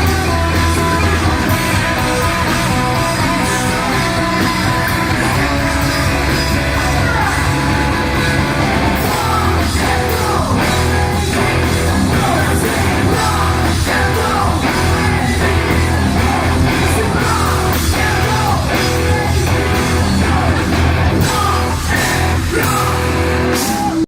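Rock band playing live at full volume: distorted electric guitars, bass and drums, with singing over them.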